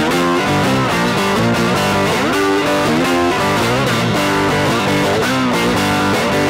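Blues instrumental played by a guitar and harmonica duo, with many notes bent up and down in pitch.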